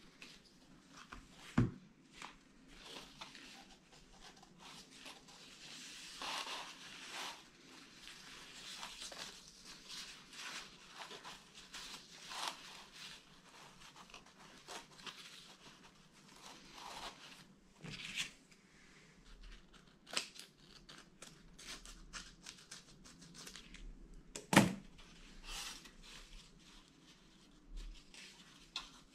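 Quiet rustling and sliding of satin ribbon being pulled off its spool and wound round cardboard toilet-roll tubes, with scattered light clicks and small knocks of handling and scissors. One sharper knock late on is the loudest sound.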